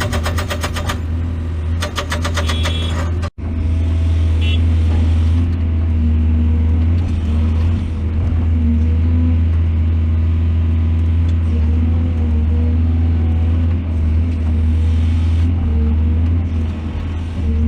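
Heavy diesel engine of construction machinery running steadily with a deep drone, with a harsh high buzzing in the first second and a sudden brief cut-out about three seconds in.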